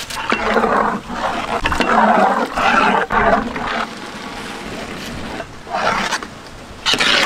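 Drained basmati rice tipped into a large metal pot of boiling mutton gravy, then stirred with a long ladle. A rough rushing noise for the first few seconds, quieter after, with two short scrapes or stirs near the end.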